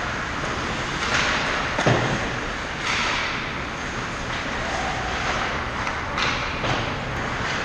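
Ice hockey skates scraping and stopping on the ice around the net, in several hissy bursts, with stick and puck clatter and one sharp knock about two seconds in.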